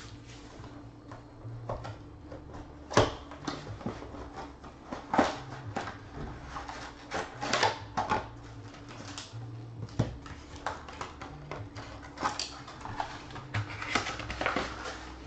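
A 2013-14 Panini Intrigue basketball card box being opened and handled: irregular clicks, taps and rustles of cardboard and wrapper. The foil-wrapped pack is lifted out of its white cardboard tray and set down.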